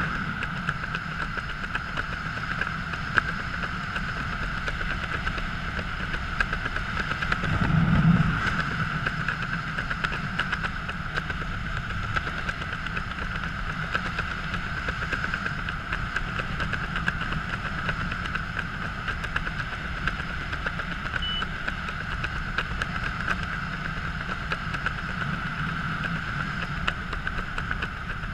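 Wind noise on a skydiver's body-worn camera microphone during descent under an open canopy: a steady rush with a constant hum, swelling briefly about eight seconds in.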